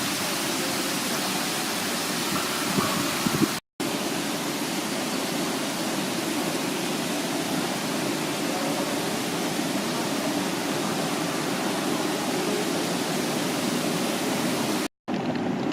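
Steady rushing, splashing water from a cruise ship solarium's hot tubs, an even wash of noise. It drops out twice for a split second, about four seconds in and near the end.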